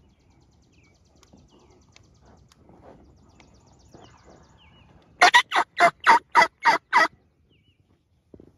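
Turkey yelping: a run of about eight loud, evenly spaced yelps lasting about two seconds, starting about five seconds in. Faint songbird chirps come before it.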